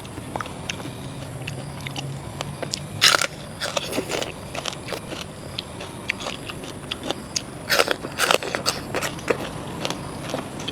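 Close-up sounds of someone eating raw marinated seafood: wet biting, chewing and lip smacks, with irregular crackles and several louder moist crunches.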